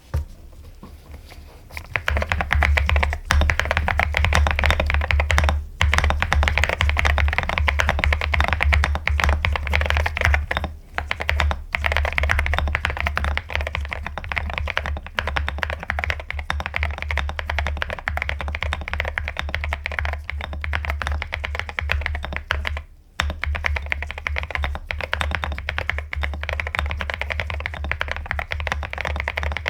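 Mechanical keyboard being typed on fast and continuously: dense, rapid keystrokes that start about two seconds in, with a few brief pauses.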